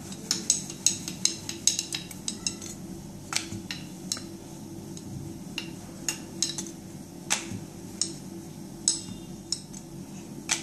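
Rolling pin rolling out a stuffed paratha on a steel plate, clicking and knocking against the metal with each stroke: quick clicks for the first couple of seconds, then more spaced-out knocks.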